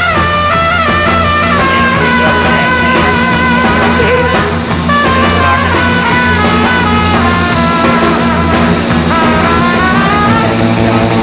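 Rock music with a melodic electric guitar lead over a steady bass line.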